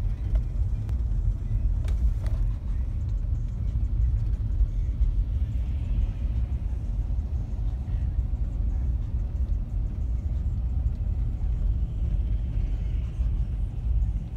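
A car driving slowly, with a steady low rumble of engine and road noise.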